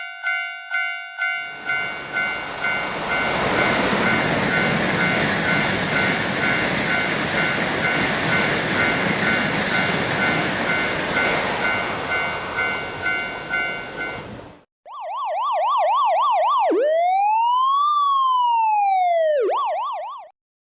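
Cartoon railroad crossing bell clanging about two to three times a second, then a train passing with a loud steady rushing noise for about thirteen seconds, the bell still clanging under it. After a brief gap, an electronic siren sounds: a fast warble, one slow rise and fall, then the fast warble again.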